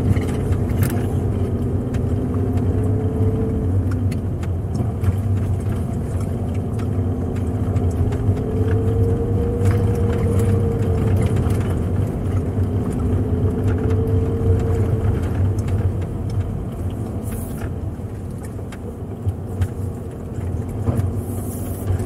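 Car engine and road noise heard inside the cabin while driving up a narrow uphill road: a steady low rumble, with the engine note slowly rising and falling.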